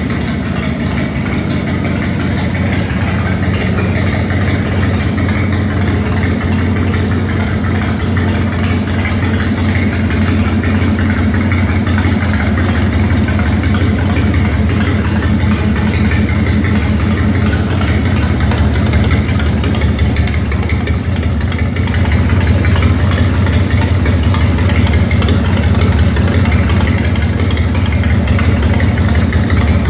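The Ford 302 V8 engine of a 22W cable-tool drilling rig running steadily, growing slightly louder about two-thirds of the way through.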